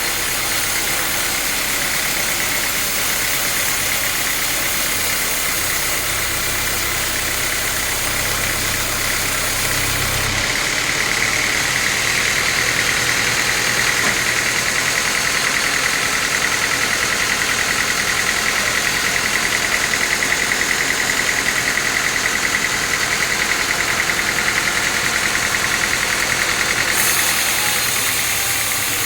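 Sawmill saw and its drive running steadily, cutting teak. A high whine grows stronger and a little louder about ten seconds in, then eases near the end.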